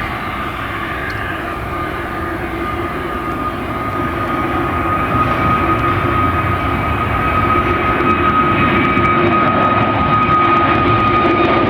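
Jet airliner's engines running with a steady high whine over a deep rumble, growing slowly louder.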